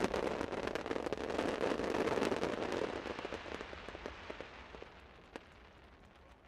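Fireworks finale: a dense crackle of many small bursts that thins out and fades after about three seconds, leaving a few scattered pops near the end.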